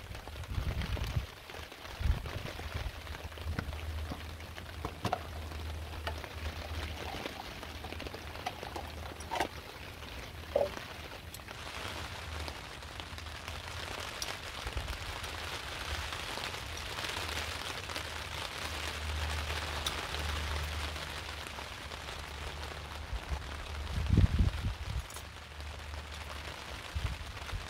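Heavy rain pattering steadily on a tarp overhead, with a low rumble underneath. Scattered small knocks and clicks run through it, and a few louder thumps come near the end.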